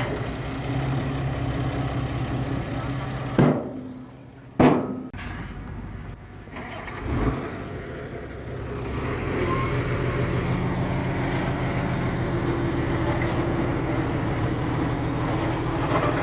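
Diesel engine of heavy earthmoving machinery running steadily. Two sharp knocks come about three and a half and four and a half seconds in, and the engine sound drops away for a few seconds before it returns and holds steady.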